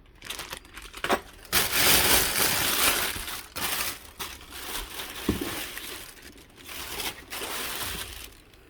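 Packaging crinkling and rustling as an unboxed item is handled, in irregular bursts with a few small clicks, loudest a second or two in.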